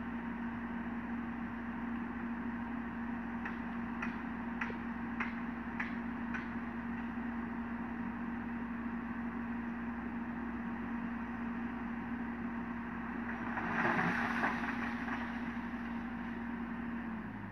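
Sumitomo SH130 excavator's diesel engine running with a steady hum while the machine works, with a quick string of about six sharp metallic clicks early on and a louder rush of noise about fourteen seconds in.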